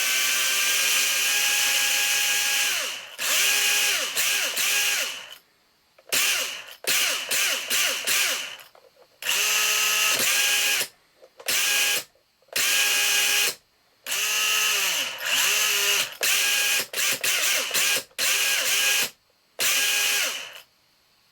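Radio-control brushless motor whining with a mechanical rattle, held steady for about three seconds, then throttled in a string of short bursts that rise and fall in pitch. The owner suspects this noise is abnormal, possibly an initial defect.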